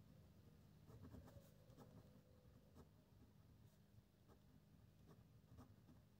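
Faint scratching of a pen writing on paper, in short, irregular strokes.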